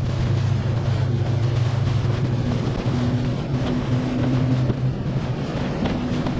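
A boat's engine running steadily: a low, even hum over wind and water noise.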